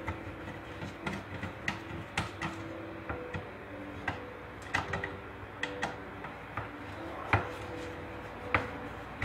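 Irregular light clicks and knocks of hardware being handled inside an open PC case, the sharpest about seven seconds in and another a little later.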